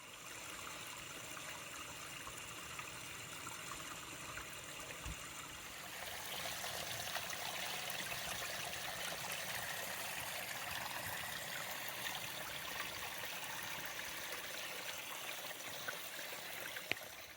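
Small creek flowing, a steady rush and trickle of water that gets louder about six seconds in.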